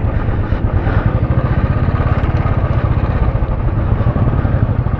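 Royal Enfield Classic 350's single-cylinder engine running at low speed, a steady, even thumping heard from the rider's seat.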